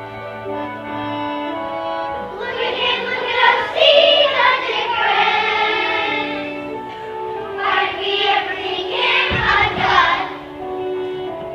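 Music: an accompaniment of held instrumental notes, with high young voices singing over it from about two seconds in, pausing briefly around the middle and stopping shortly before the end. A brief low thump comes near the end of the singing.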